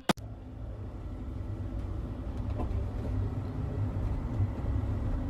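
A steady low rumble that swells slightly over the first few seconds.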